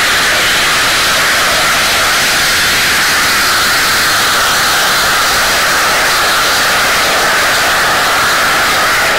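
Steady jet engine roar, a loud hissing rush that neither rises nor falls.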